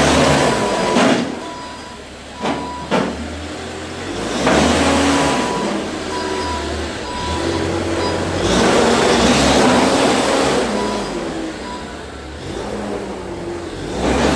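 Diesel engine of a demolition machine such as a JCB, revving and easing in surges as it works, with two sharp knocks a few seconds in.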